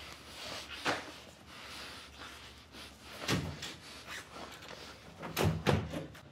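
Knocks and thumps of two people bumping against walls and furniture while kissing: a knock about a second in, a dull thump around three seconds, and two louder knocks close together near the end.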